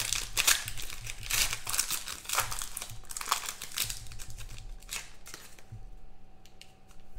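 Foil wrapper of a 2017 Impeccable football card pack being opened by hand, crinkling in a run of sharp crackles that thin out about five and a half seconds in.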